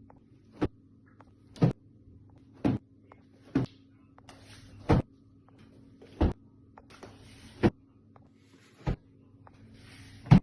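A series of sharp knocks, about one a second and about ten in all, over a low steady hum, with short hissing noises between some of the knocks in the second half.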